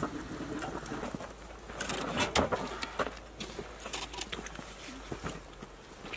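Handling of a roasted cow's head on a large metal tray: scattered clicks and knocks, with a louder scraping, rustling patch about two seconds in.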